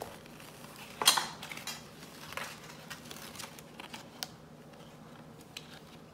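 Gold glitter cardstock cutouts being handled and laid down on a velvet cushion. A sharp papery rustle about a second in, then a few softer rustles and taps.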